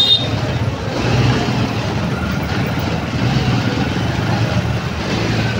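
Motorcycle engine running at low speed in slow, crowded traffic among other motorbikes, its low hum rising and falling. A brief high-pitched chirp sounds right at the start.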